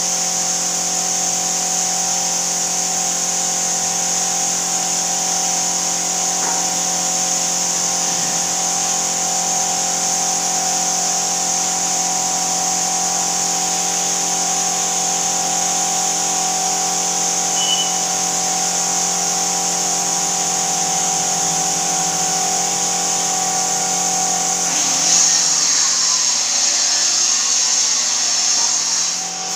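Air compressor running steadily under the hiss of a compressed-air spray gun spraying finish onto wood. The hiss gets a little louder near the end.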